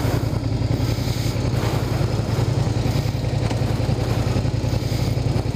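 Motorcycle engine idling steadily with a low, even pulse.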